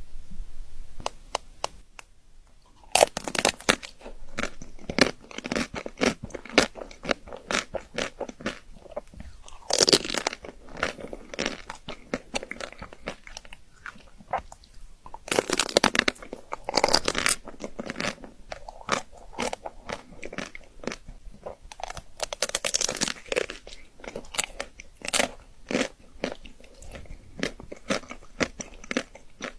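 A person biting into chocolate and chewing it: sharp crunching bites with clicky chewing in between. It is faint for the first couple of seconds, then comes in louder bursts of crunching about 3, 10, 16 and 23 seconds in.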